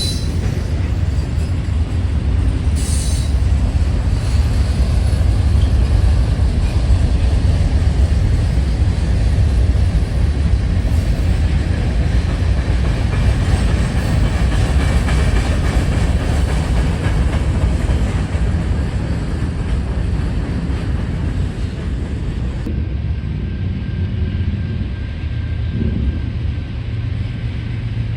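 Freight train rolling past, a steady rumble of steel wheels on the rails, with a brief high squeal about three seconds in. The rumble eases slightly near the end.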